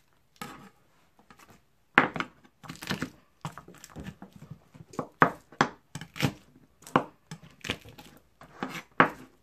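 Garlic cloves crushed under the flat of a chef's knife on a plastic cutting board, their papery skins tearing and crackling as they are peeled. An irregular string of sharp knocks starts about two seconds in.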